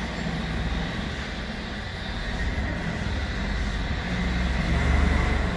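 Rockwell metal lathe running with its headstock open: spindle, pulley and gear train turning, a steady mechanical running noise of meshing gears and drive, a little louder near the end.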